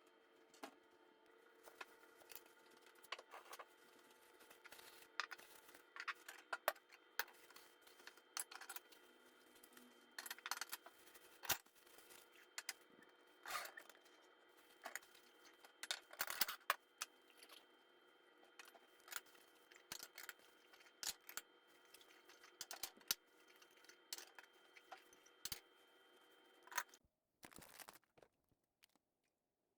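Scattered light clicks, taps and scrapes of kitchen utensils and food handling, over a faint steady hum that cuts off about 27 seconds in.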